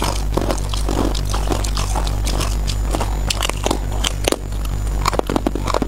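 Close-up crunching of packed crushed ice being bitten and chewed: a dense run of sharp crackles and crunches, over a steady low hum.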